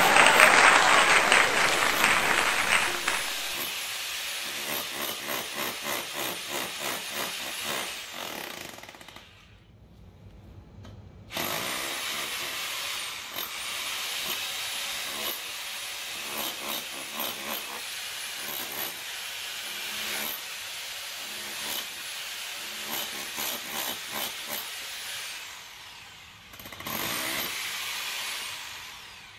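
Tool working wood: a loud noisy burst for the first few seconds, then rhythmic back-and-forth strokes at about two a second, like hand sawing or rasping. The strokes stop for about two seconds near the middle, then go on.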